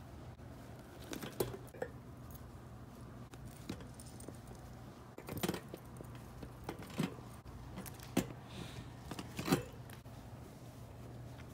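Plush toys being handled and lifted out of a white wire storage basket: scattered light clicks and rattles of the wire, a few knocks and soft rustling, over a faint steady low hum.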